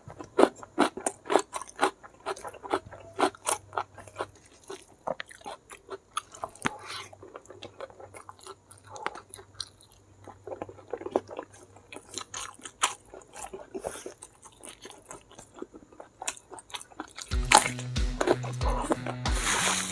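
Close-miked chewing and crunching of mouthfuls of raw cucumber and rice, a quick run of crisp crunches. About seventeen seconds in, background music with a steady beat starts.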